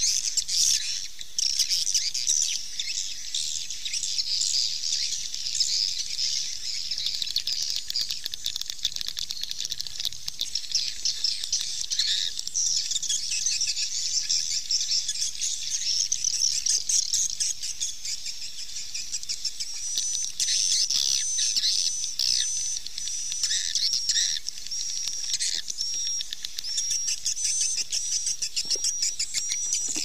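Swiftlets twittering in a dense, high-pitched chatter, the kind of swiftlet call played as a lure to draw the birds to a nesting house. From about two-thirds of the way in, a short, higher chirp repeats roughly once a second over the chatter.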